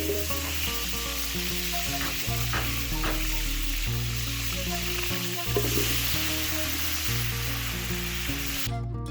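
Food sizzling steadily as it fries in hot cooking oil, with a few short stirring scrapes, over background music. The sizzle cuts off sharply near the end.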